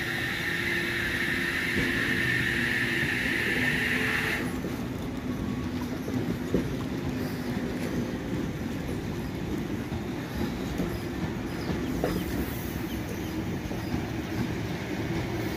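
Sydney Trains Waratah double-deck electric train pulling out and running past, wheels rumbling and clicking over the rails. A steady hiss cuts off suddenly about four seconds in.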